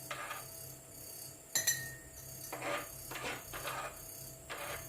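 Kitchen utensils and dishes being handled during ginger preparation: one sharp clink with a brief ring about a second and a half in, among several short scraping strokes.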